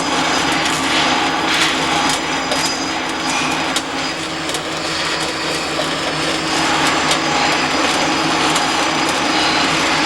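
Steady loud machine noise with a low hum, broken by many short clicks and knocks throughout.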